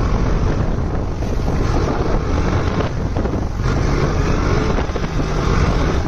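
Wind rushing over the microphone of a motorcycle riding at speed, with the steady drone of the bike's KTM RC 390 single-cylinder engine underneath.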